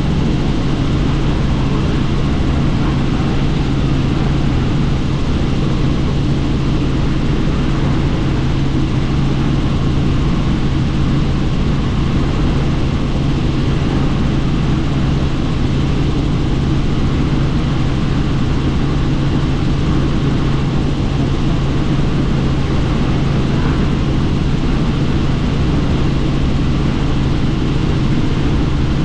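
Helicopter in flight heard from inside an open-door cabin: a steady, unchanging drone of rotor and engine with rushing wind noise.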